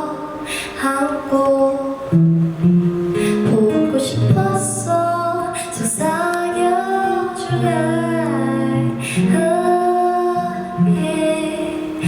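Live music: a female vocalist singing a slow, gentle song over plucked guitar accompaniment, with long held, gliding notes.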